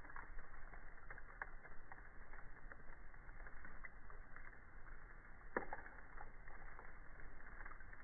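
Wood campfire burning, crackling steadily with many small snaps and one sharper pop about five and a half seconds in.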